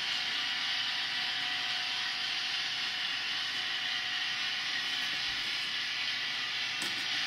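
Model freight train running past: a steady hiss of the wagons rolling along the track, with a few brief clicks near the end.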